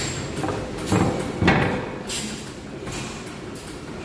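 Antique horizontal stationary gas engine being rolled over by hand at its flywheel, with two short, sharp chuffs about one and one and a half seconds in over a steady mechanical clatter.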